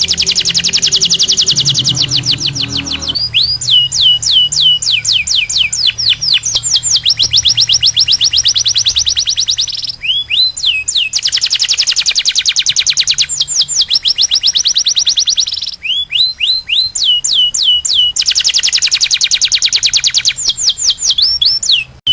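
Domestic canary singing a long song of rapid trills and rolls: fast runs of repeated high notes and falling sweeps, broken by short pauses about ten and sixteen seconds in.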